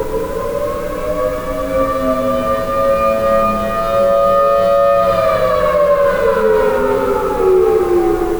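Outdoor warning siren sounding the wail of the attack signal. Its pitch rises, holds for about a second, then falls away toward the end.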